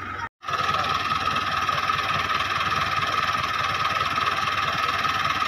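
Tractor engine running steadily with a persistent whine over it, after a split-second break in the sound just after the start.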